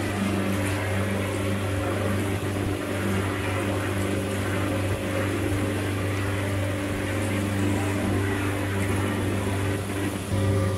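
Houseboat's engine running steadily while underway, a constant low drone, with the rushing wash of the boat's wake.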